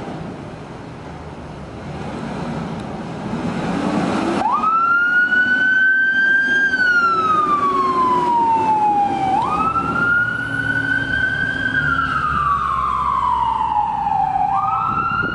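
2021 Pierce Arrow XT fire engine's diesel engine running as it pulls out. About four seconds in, its siren starts a wail: a quick climb in pitch, then a long slow fall, repeating about every five seconds.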